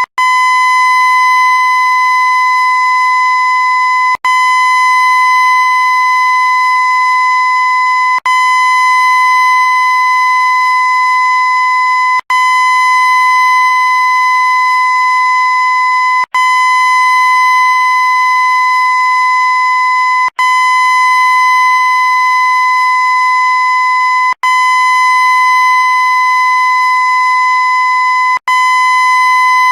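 A loud, steady, high-pitched electronic tone held without change. It is a looped recording that cuts out for a split second about every four seconds and restarts at once.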